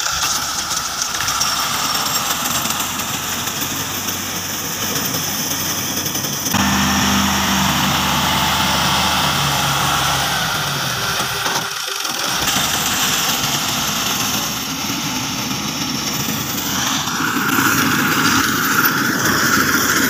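Fiat 480 tractor's three-cylinder diesel engine running steadily as it drives a front-mounted reaper cutting wheat. The tone and level change abruptly twice.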